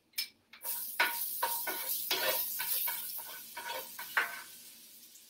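Chopped shallots sizzling in a hot skillet of pan juices, with a utensil stirring and scraping them around the pan. The sizzle starts suddenly under a second in and fades toward the end.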